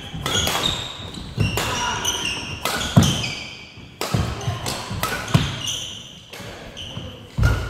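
Badminton rally: rackets striking the shuttlecock in sharp, irregular hits, with shoes squeaking briefly and feet thudding on the wooden court floor. The floor sounds ring in a large hall.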